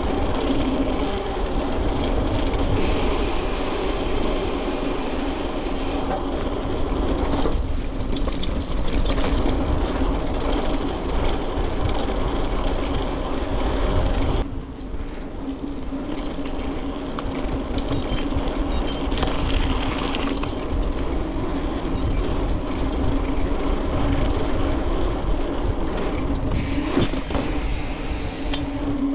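Riding noise from a bicycle on the move: wind rumbling on the microphone and a steady hum, with a few abrupt changes.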